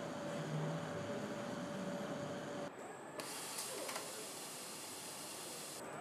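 Engine assembly line machinery running: a steady mechanical hum with a held tone, which gives way about halfway through to a steady high hiss that stops shortly before the end.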